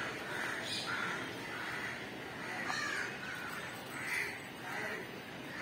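Crows cawing over and over, short rough calls about every half second.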